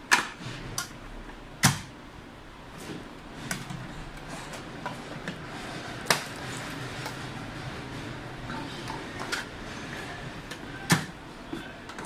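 Plastic housing of a canister vacuum cleaner being handled and pressed back together. A handful of sharp plastic clicks and knocks, the loudest about two seconds in and near the end.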